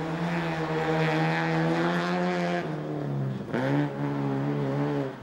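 Daihatsu Charade 4WD rally car's engine accelerating hard through the gears: the pitch climbs steadily, drops at an upshift about two and a half seconds in, dips briefly, then climbs again to another shift at the end.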